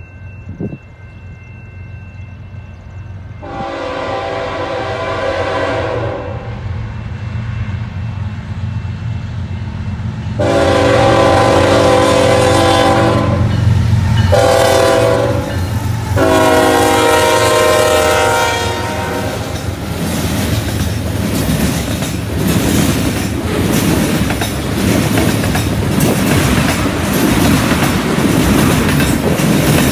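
Canadian National freight train's diesel locomotives approaching with rising engine rumble, the lead unit sounding its multi-note air horn in the grade-crossing pattern: long, long, short, long. After the last blast the cars roll past with wheels clacking on the rails.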